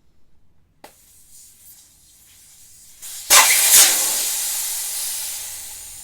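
Air rushing out of a scooter tyre's valve as it is deflated: a faint hiss, then a sudden loud rush about three seconds in that slowly dies away as the pressure falls.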